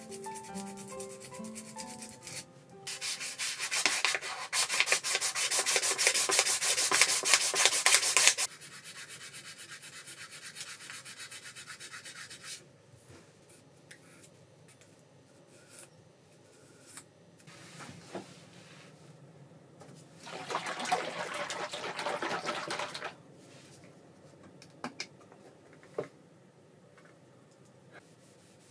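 Abrasive rubbing during knife making: a loud spell of quick rubbing strokes from about three to eight seconds that carries on more quietly until about twelve seconds, then a second, shorter spell about twenty-one seconds in.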